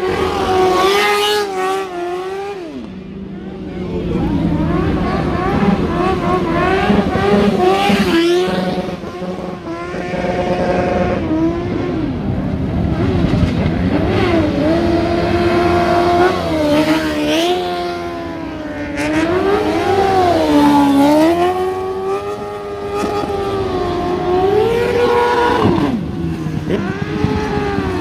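Motorcycle engine revving hard on a drift run, its pitch rising and falling again and again every second or two.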